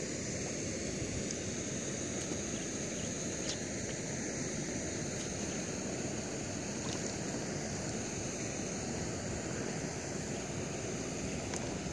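Steady outdoor noise of wind on the microphone and lake water around a person wading, with a steady high hiss over it and a few faint ticks.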